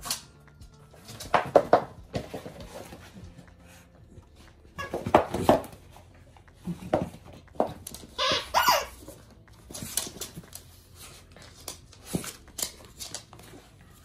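A dog mouthing and chewing plush squeaky toys, the squeakers squeaking several times in short separate bursts, with a longer, higher squeak about eight seconds in.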